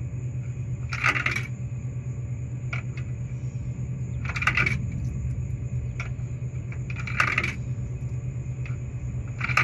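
Quarters dropped one at a time into a soda vending machine's coin slot, four of them about three seconds apart, each clinking down through the coin mechanism, over a steady low hum.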